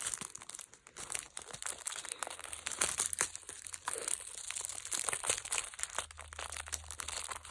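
Packaging crinkling and rustling as it is handled and pulled open: irregular crackles throughout.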